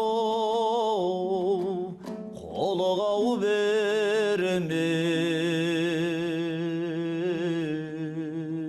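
Kazakh traditional song: a singer holds long notes with vibrato over a steady low accompaniment. About two seconds in, the voice breaks off briefly and then glides up into a new phrase.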